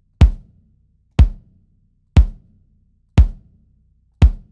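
Mixed kick drum with its batter head removed, two blankets and a pillow inside and the mic inside the shell, struck five times about once a second. Each hit is short with a lot of attack and dies away quickly.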